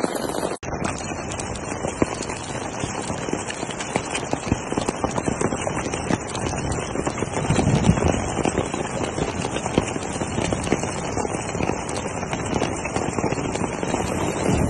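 Hail and heavy rain pelting the ground: a dense, irregular clatter of many small impacts, with a brief break about half a second in.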